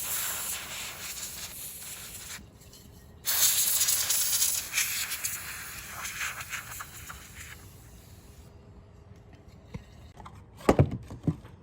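A spray hissing in two long bursts: the first stops about two seconds in, and the second starts a second later and tails off. A few sharp knocks of handling follow near the end.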